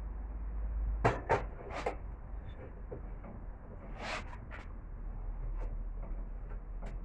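A few sharp knocks over a low steady hum: three close together about a second in, and a louder one near the middle, followed by fainter ticks.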